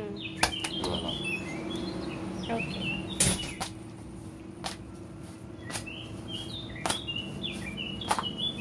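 Sharp knocks and slaps of a wooden rolling pin and paratha dough against the counter as the dough is rolled out thin and lifted, the loudest about three seconds in. Over them, birds chirp in short high notes and a low steady hum runs underneath.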